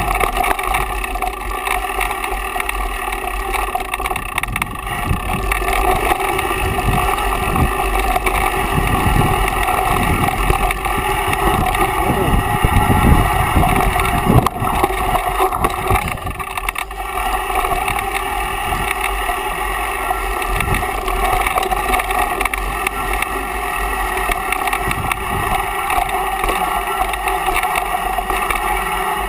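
Mountain bike rolling down a dirt singletrack: a steady rushing noise with the bike rattling and irregular knocks as the wheels hit bumps, densest in the middle, heard on a camera mounted on the bike or rider.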